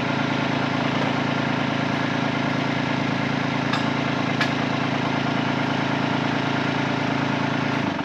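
Kubota tractor's diesel engine running at a steady speed, with a couple of faint clicks midway.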